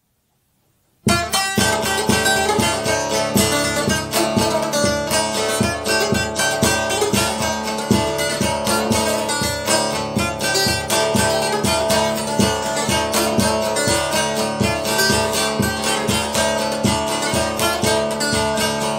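Instrumental opening of a Turkish folk song (türkü): a plucked string instrument playing a steady run of strokes, starting suddenly about a second in.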